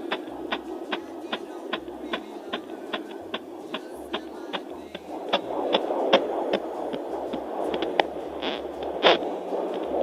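Fetal heartbeat played through the speaker of an Angelsounds JPD-100B handheld fetal Doppler at 18 weeks of pregnancy. Quick, regular beats come about two and a half times a second over a steady whooshing hum, and the hum grows louder about halfway through.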